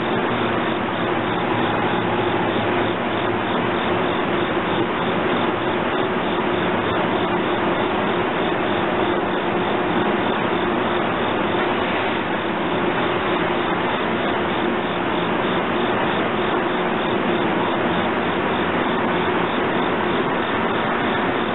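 Steady hum and hiss of an electric commuter train of NJ Transit Comet coaches standing at and creeping along the platform, with a couple of faint steady tones in it.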